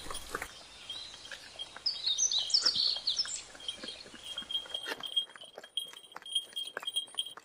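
Donkey pulling a wooden cart: scattered clops of hooves and knocks from the cart as it rolls, with birds chirping about two to three seconds in.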